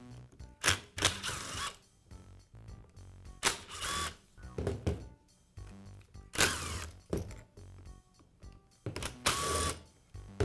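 Screwdriver turning out the gear-housing screws on a Makita angle grinder: several short metal-on-metal scrapes and clicks, over soft background music.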